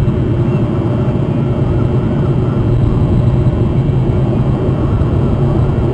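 Gulls calling faintly here and there over a loud, steady low rumble.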